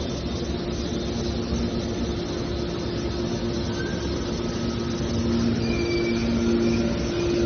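Scrap metal baler machinery running with a steady mechanical drone and a low two-note hum, growing a little louder about five seconds in, with a couple of faint short squeaks near the end.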